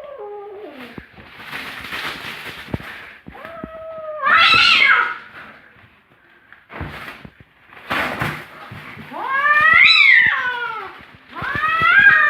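A cat yowling: several long, drawn-out calls that rise and fall in pitch, the loudest about four seconds in and again near the end. Rough noisy bursts come between the calls.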